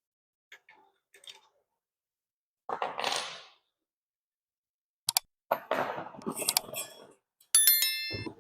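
Metal parts of a circular saw clicking, rattling and clinking as the saw blade is handled and fitted with an Allen key, with a bright metallic ring near the end.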